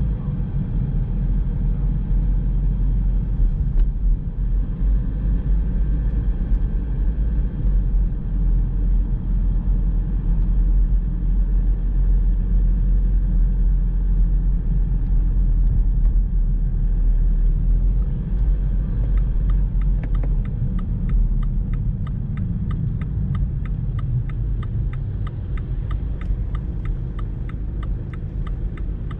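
Car driving through town, a steady low road and engine rumble heard inside the cabin that eases as the car slows. From about two-thirds of the way in, a rapid, even clicking starts, typical of the turn-signal indicator ticking as the car nears a junction.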